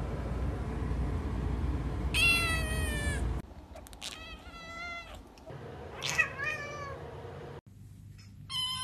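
Kittens meowing: one long, falling meow about two seconds in, then several shorter high meows from a second kitten, and another meow from a third kitten near the end.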